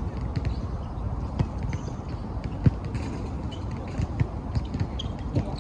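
Irregular thuds and knocks on a hard floor, like people's footsteps and chairs being moved, with faint high voices or squeaks in the background; one knock about two and a half seconds in is louder than the rest.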